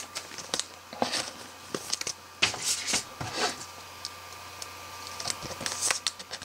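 Trading cards and a thin plastic card sleeve handled: a scatter of small clicks, taps and rustles of card stock and plastic, the sharpest about two and a half seconds in.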